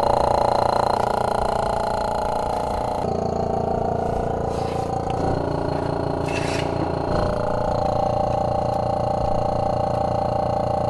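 An electric power tool's motor running steadily and loudly, changing its note a few times under load, then cutting off.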